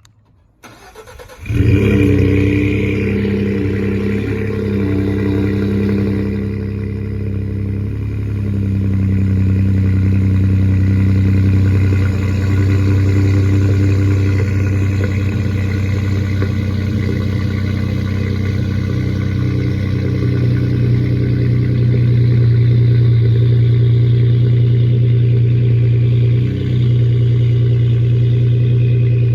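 Ford 3.5 EcoBoost twin-turbo V6 starting about a second and a half in, then idling steadily through an SPD whistler cat-back exhaust with catted downpipes.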